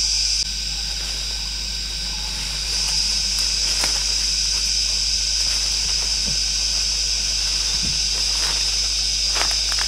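Tropical forest ambience: a steady high-pitched insect drone, which drops back about half a second in and swells again near three seconds. A few faint rustles of footsteps on dry leaf litter sound over it.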